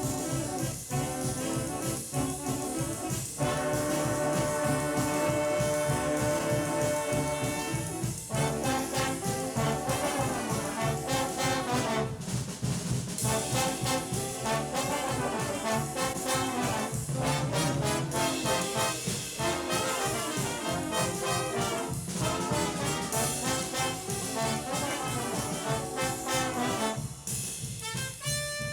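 A junior high school stage band plays a big-band jazz arrangement, with the brass section of trombones and trumpets leading. Long held chords come about four seconds in, then the band moves on to busier passages.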